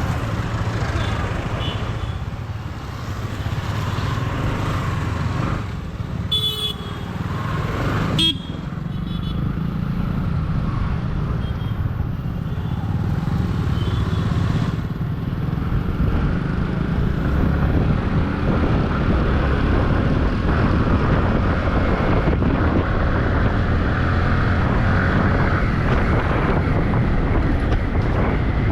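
Yamaha R15 V3's 155 cc single-cylinder engine running under a rider in traffic, with wind noise on the mic. A vehicle horn toots twice about six and eight seconds in, and engine and wind get louder from about halfway as speed rises.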